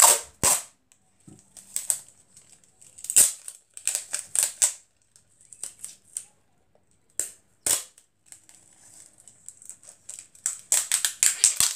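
Clear adhesive tape being pulled off its roll and wrapped around folded paper, in short crackly rasps at irregular intervals, with paper rustling.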